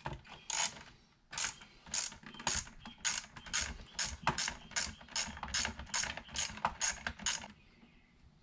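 Hand ratchet with an 8 mm socket clicking rapidly as it backs a nut off a battery terminal, about three to four clicks a second, stopping near the end.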